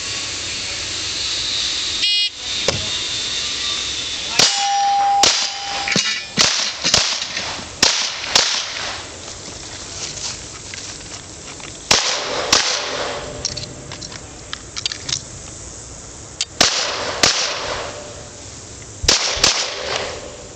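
A shot timer beeps once about five seconds in, then a string of pistol shots at steel plates follows, often in quick pairs, with the hit plates clanging and ringing after the shots.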